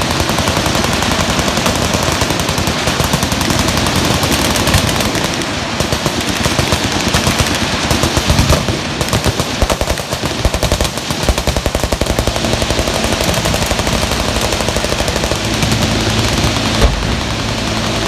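Many machine guns firing at once in sustained, rapid automatic fire, with one single louder bang near the end.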